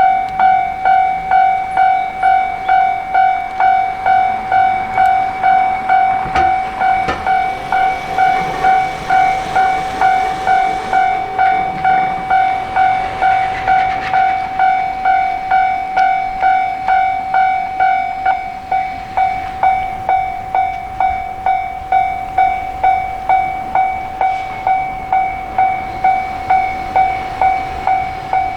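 Japanese railway level crossing warning bell ringing its repeated 'kan-kan' tone, a little under two strikes a second, signalling an approaching train. From about six seconds in to about fourteen, a train passes through the crossing under the bell.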